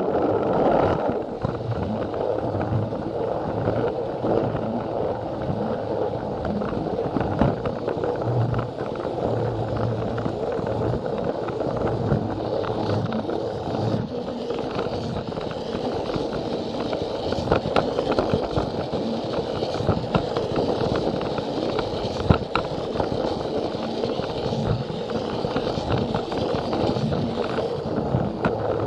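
Plarail battery-powered toy train running along plastic track, heard from a camera riding on the train: a steady rattling rumble of its motor and wheels with scattered small clicks, and one sharper click a little past two-thirds of the way through.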